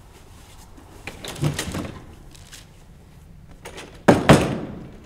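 An apartment door opened about a second in, then slammed shut with a loud bang about four seconds in.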